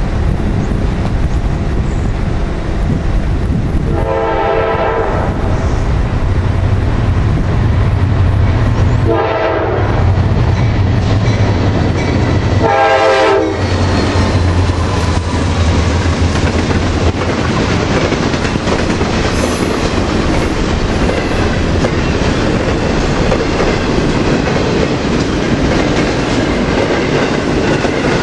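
Approaching diesel freight locomotives sound their horn in three blasts, the first the longest, over a steady low engine drone. From about halfway the locomotives are past and double-stack container cars roll by with continuous wheel clatter.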